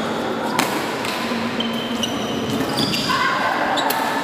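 Badminton rackets striking the shuttlecock, a sharp crack about half a second in and another near the end, with short squeaks of sneakers on the court floor between them, over the steady background noise of a large sports hall.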